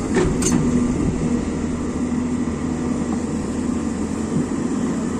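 Hyundai crawler excavator's diesel engine running steadily while the bucket digs, with a couple of sharp knocks near the start as the bucket strikes rock.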